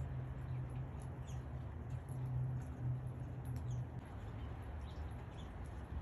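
Small birds give faint, short high chirps scattered through a steady hiss of rain. A low hum runs underneath and stops about four seconds in.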